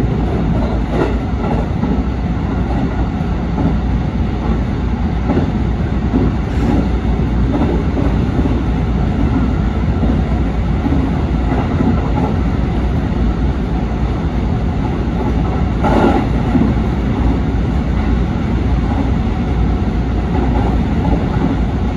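JR Central 313 series electric train running along the track, heard from inside the train: a steady rumble of wheels on rail with a few sharp clicks over rail joints, the loudest about three quarters of the way through.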